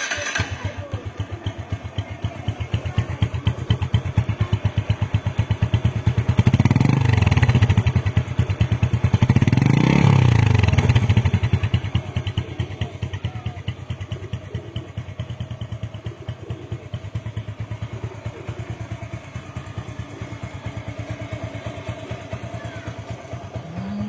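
Bajaj Discover 135's single-cylinder four-stroke air-cooled DTS-i engine idling through a chrome aftermarket silencer. It is revved twice, about six and ten seconds in, rising and falling in pitch each time, then settles back to a steady idle.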